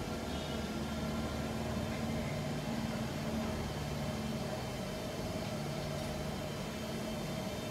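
Steady background hum with a low rumble and a faint constant tone; no single event stands out.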